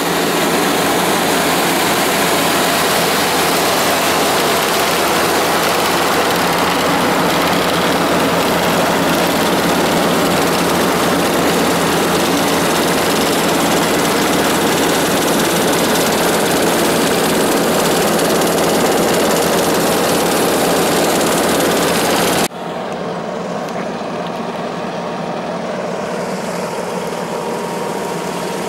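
Asphalt paver's diesel engine and machinery running steadily at work. About three-quarters of the way through, the sound cuts abruptly to a quieter, steady engine noise.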